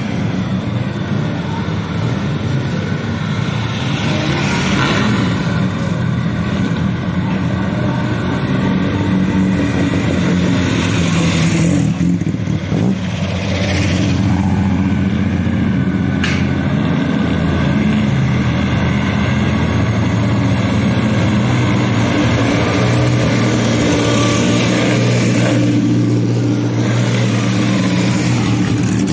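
Engines of pre-war vintage cars running, their note rising and falling, with a few passing close by one after another about halfway through.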